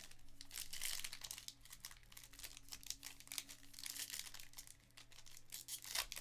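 A foil Panini Prizm trading-card pack being crinkled and torn open by hand: a faint crackling rustle that comes in bursts.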